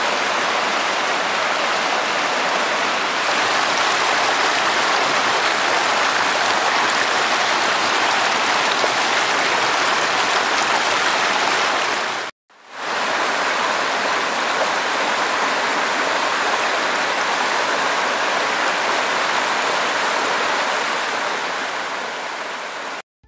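A rocky mountain stream pouring over small cascades: a steady rush of splashing water that breaks off for a moment about halfway through.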